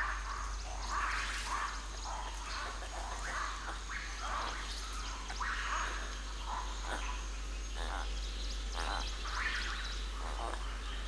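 Forest ambience: scattered short chirping animal calls, some lasting up to about a second, over a faint steady high tone.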